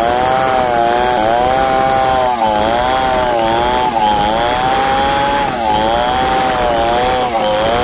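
Chainsaw running under load while ripping a log lengthwise into planks. Its pitch sags and recovers several times as the bar bites into the wood.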